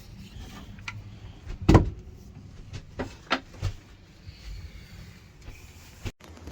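Several sharp knocks and clunks of something being handled, the loudest about two seconds in and three more close together a little after three seconds, over a low rumble.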